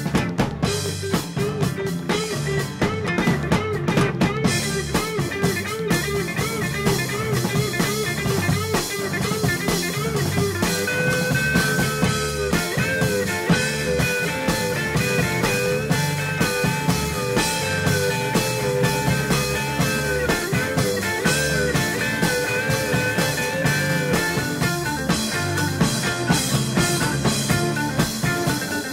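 Rock music soundtrack with a drum kit and guitar, playing steadily.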